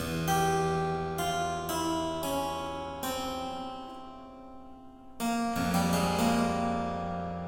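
Harpsichord music: a slow passage of plucked notes over a held bass, the sound dying away until a loud arpeggiated chord is struck about five seconds in and left ringing.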